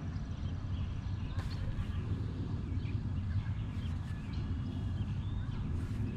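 Outdoor ambience: a steady low rumble of wind on the microphone, with birds chirping now and then and a few faint clicks.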